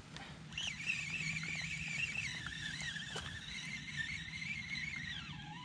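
Fishing reel whining with a wavering pitch while a fish pulls on the line; near the end the pitch slides down and the whine stops.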